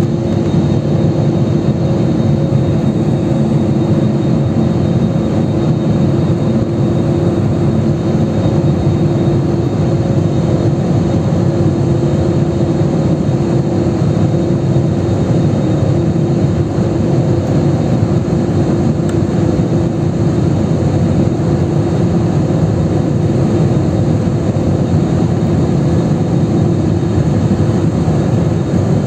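Steady drone of an airliner's jet engines and rushing airflow heard inside the cabin in flight, with a constant low hum running under the noise.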